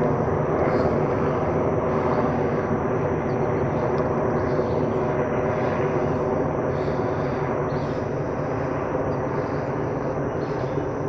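Four helicopters flying in formation overhead: a steady drone of engines and rotors with several held tones, slowly fading.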